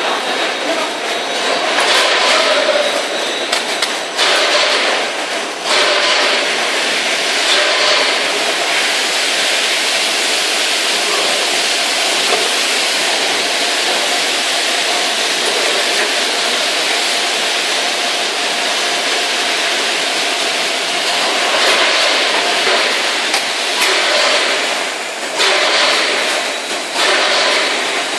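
Vacuum packaging line running: the AIRZERO AZA-450ES vacuum packaging machine and its conveyor make a steady, loud mechanical hiss and hum, with a few louder stretches of hiss.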